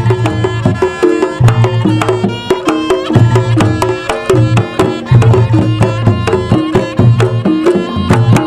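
Reog Ponorogo music: dense, rapid kendang drum strokes over steady pitched melody notes, with deep low notes coming back every second or so.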